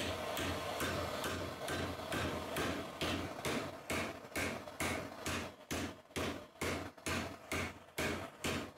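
Hammer blows on a rusty steel leaf-spring hanger held in a vice, about two to three strikes a second, over the steady hiss of a gas blowtorch heating it; the hiss fades in the second half, leaving the strikes standing out.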